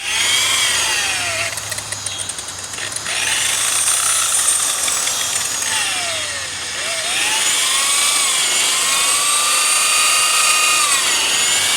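Adjustable-speed 7-inch electric buffer running on a plastic headlight lens, its motor whine rising and falling in pitch again and again as the trigger is worked.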